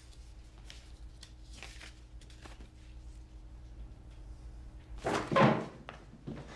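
Soft rustling of paper sheets being handled over a low room hum, then a louder clunk of a hinged door about five seconds in.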